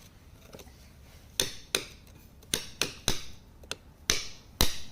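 A hand tool tapping rock: about nine sharp, uneven strikes that begin about a second and a half in.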